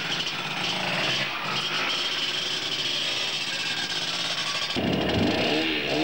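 Several two-stroke enduro motorcycles running and revving as riders pull away from the start, one after another. About five seconds in, engine revs rise and fall sharply as a bike accelerates off close by.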